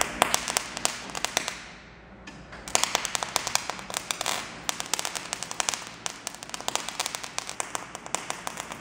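MIG welder arc crackling and popping with dense, irregular pops, in two runs: about two seconds, a break of under a second, then about six seconds more.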